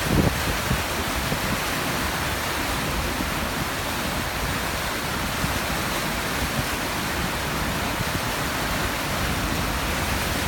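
Niagara Falls: a steady, unbroken rush of falling water. A brief low thump comes just after the start.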